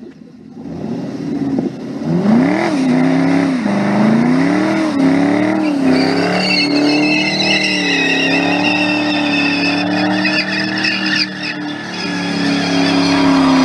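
Car engine revving up and down, then held at high revs while the tyres squeal continuously from about six seconds in.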